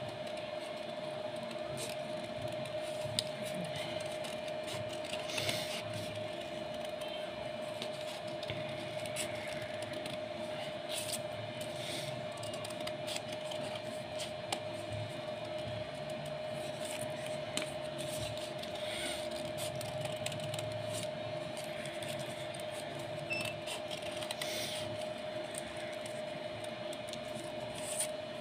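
Scissors snipping through folded golden paper, with occasional paper rustling, as scattered short clicks every few seconds. A steady hum runs underneath.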